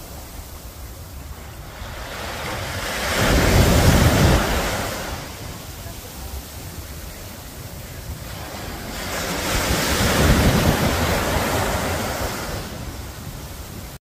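Small sea waves breaking and washing up a sandy beach: two surges of surf about six seconds apart, each swelling to a rush and fading back over a few seconds.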